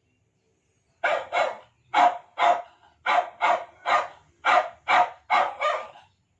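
A dog barking in a rapid series of about a dozen short barks, loosely in pairs, starting about a second in and stopping about a second before the end.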